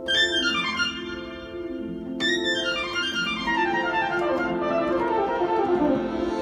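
Nord keyboard and Moog Little Phatty analog synthesizer played together: held chord tones under fast cascades of notes that fall in pitch, one at the start and another about two seconds in.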